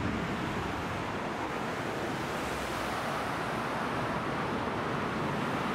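Steady rushing road noise of a car approaching through a concrete road underpass, growing slightly louder near the end.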